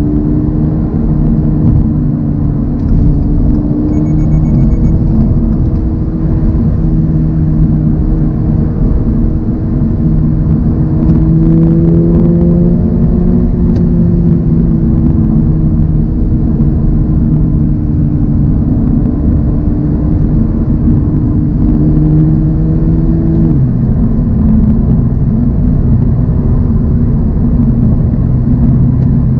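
Toyota GR86's 2.4-litre flat-four engine running at steady cruise over road noise, its pitch rising a little then easing off, and dropping suddenly about two-thirds of the way through.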